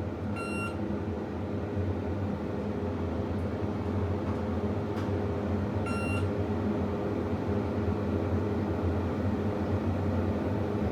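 Diamond-modernized Dover hydraulic elevator car travelling, a steady low hum in the cab, with the car's electronic chime giving a short beep near the start and again about six seconds in as it passes floors.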